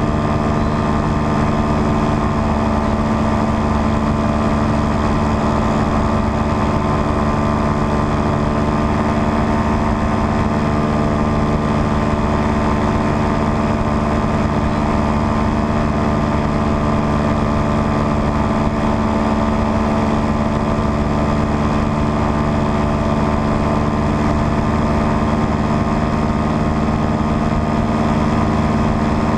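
Paramotor engine and propeller running steadily in flight, one even drone that holds the same pitch throughout.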